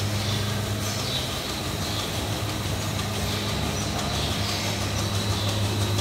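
Milking plant machinery running in the shed: a steady low mechanical hum over a faint hiss.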